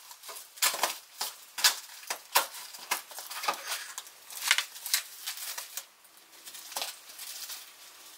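Plastic packaging and bubble wrap crinkling and rustling as wrapped studio lighting gear is handled and unpacked, in irregular crackling bursts.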